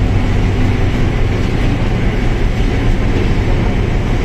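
Mercedes-Benz OF1721L bus running under way: a steady low engine drone mixed with road and drivetrain noise.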